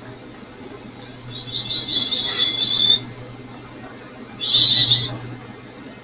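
Bird calls in two buzzy, high-pitched bursts: the first about a second and a half long and growing louder, the second shorter, a couple of seconds later. A steady low hum runs underneath.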